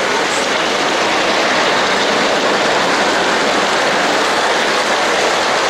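Steady rushing hiss as a G-gauge model steam locomotive runs along the track close by.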